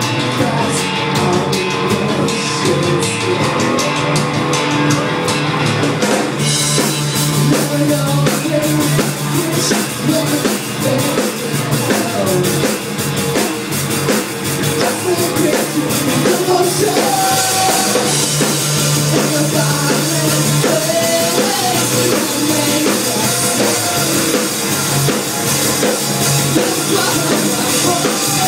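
Rock band playing a song, driven by a drum kit; the cymbals come in heavier about six seconds in.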